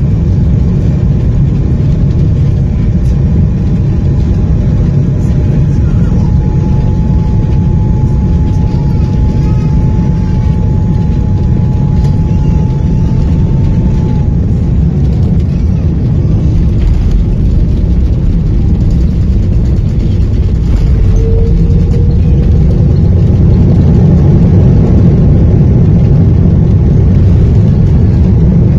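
Cabin noise of an Airbus A330-300 during landing: a steady, loud rumble of jet engines and airflow, with a thin whine that holds and then slides down about halfway through. The rumble grows louder about three quarters of the way in.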